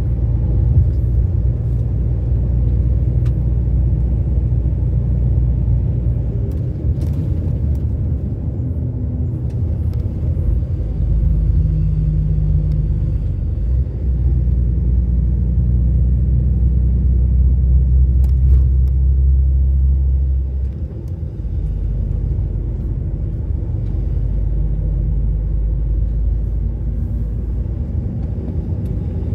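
Low, steady engine drone and road noise heard inside a truck's cab while driving. The drone grows louder about eleven seconds in and dips briefly about twenty seconds in.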